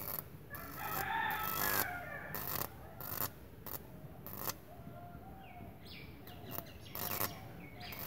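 A rooster crows once, about a second in, for roughly a second, amid several short, sharp crackles.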